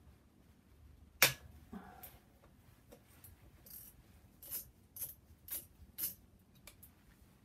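Sharp clicks and light knocks from hand tools and engine parts being handled: one loud click about a second in, then four lighter clicks about half a second apart.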